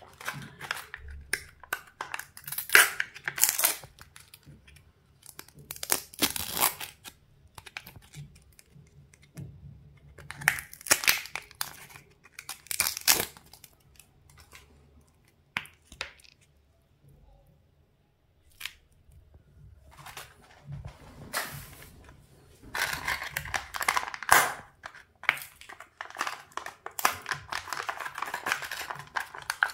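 Printed foil lids being peeled off small plastic chocolate-cream cups: irregular bursts of crinkling and tearing with short pauses between them, and a quieter stretch a little past the middle.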